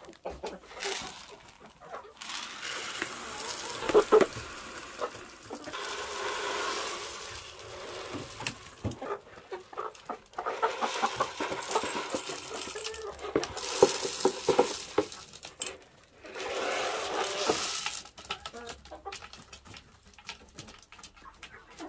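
Hens clucking while they peck grain from a tube feeder's pan, with many small beak taps and rustling feed.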